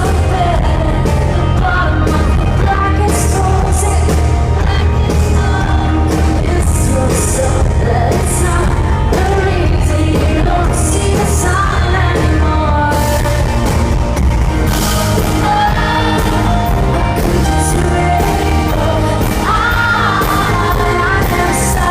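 Rock band playing a song live in concert, a woman singing lead over drums, bass and guitars, loud throughout.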